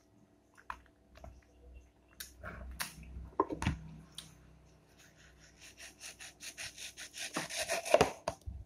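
Wet chewing and slurping of a ripe mango slice, then a knife sawing through a whole mango's skin and flesh in quick repeated strokes, about three or four a second, with a few louder knocks near the end.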